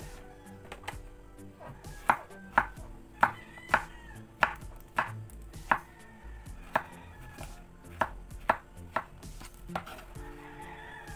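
Kitchen knife cutting through peeled ridged luffa onto a wooden cutting board, a sharp knock with each cut, about a dozen cuts at one to two a second, starting about two seconds in.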